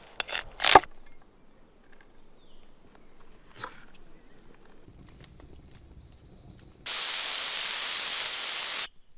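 A knife crunching through a red cabbage on a wooden board, two quick cuts in the first second. About seven seconds in, pork tenderloin medallions sizzle in a hot pan: a loud steady hiss for about two seconds that cuts off suddenly.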